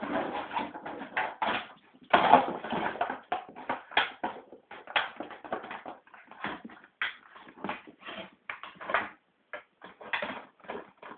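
A dog moving about right at the microphone, making a string of irregular scuffling and rustling noises, some short and some lasting about a second.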